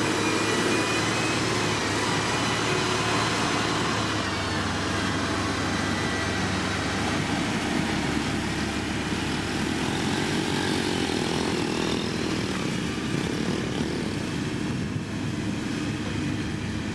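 Diesel engine of heavy road-building machinery running steadily, its pitch rising and falling a little near the middle.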